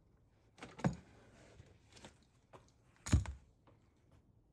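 Two soft knocks about two seconds apart, with a few fainter clicks between them: hand tools and parts being handled on the car body.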